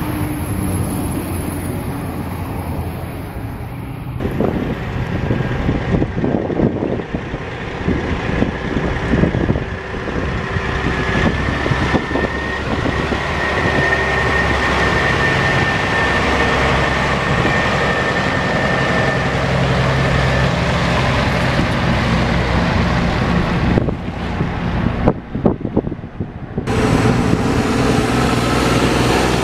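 Heavy diesel dump trucks driving past, their engines running under load, with wind buffeting the microphone. A steady high whine runs for several seconds in the middle, and the sound changes suddenly a few times as one truck gives way to the next.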